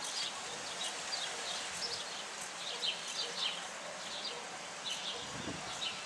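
Small wild birds chirping: short clusters of high notes, repeated several times a second, over a steady background hiss.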